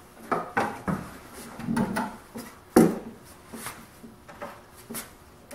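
Hands working inside a wooden sander cabinet: a series of knocks, clunks and rubbing, the loudest a sharp knock a little under three seconds in, then lighter clicks.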